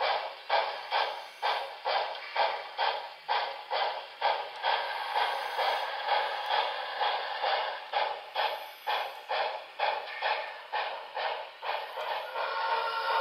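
Sound-equipped model of a Reading T1 4-8-4 steam locomotive chuffing steadily, about three exhaust beats a second, played through its small onboard speaker.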